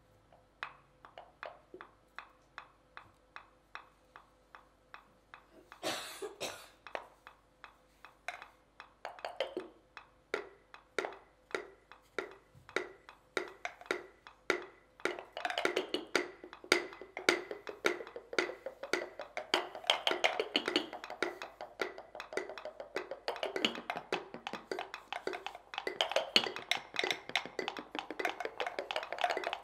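Wooden mortars tapped with wooden pestles as percussion in an ensemble piece: sparse, evenly spaced clicks about two a second at first, thickening into dense overlapping tapping that grows louder from about halfway through.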